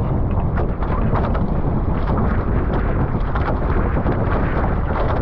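Wind buffeting the microphone over water rushing and splashing past the hulls of a Nacra 15 catamaran under sail.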